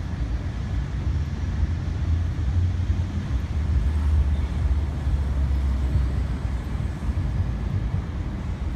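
Low, steady rumble of city traffic, swelling a little around the middle.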